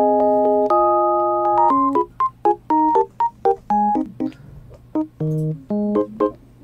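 Background music: a light electronic keyboard tune, held chords at first and then short, bouncy single notes.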